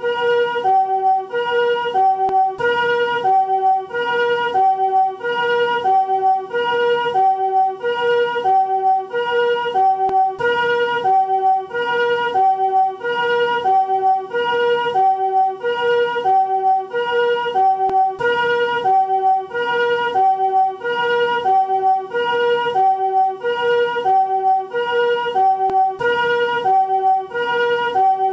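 Japanese ambulance two-tone siren in its newer chord form, the 'comfort siren': two soft chords alternate high-low at an even pace, about one high-low pair every second and a bit, repeating without change.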